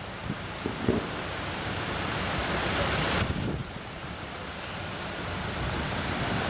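Wind buffeting the camera microphone: a steady rushing noise with a rumbling low end, and a few short low thumps about a second in.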